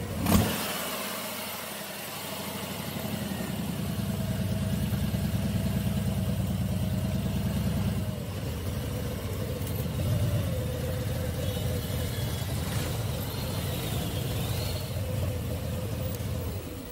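Motorcycle engine idling with a steady low rumble, after a single sharp knock about half a second in.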